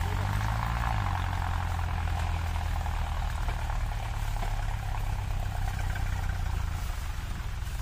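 Tractor diesel engine running steadily under the load of a heavily loaded sugarcane trolley.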